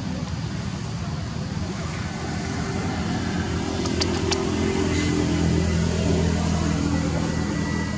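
Steady engine hum that grows a little louder in the second half, with two sharp clicks about four seconds in.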